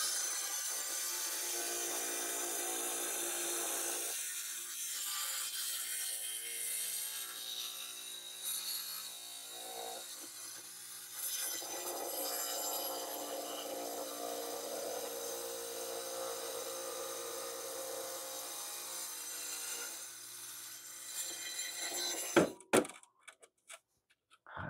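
Small tile saw's diamond blade grinding through a geode, a steady motor hum under a gritty high hiss as the stone is pushed into the blade. The saw stops about 22 seconds in, followed by a few sharp knocks.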